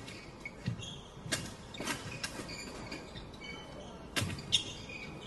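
Badminton rally on a wooden sports-hall floor: several sharp racket strikes on the shuttlecock, sneakers squeaking briefly on the court, and thudding footsteps.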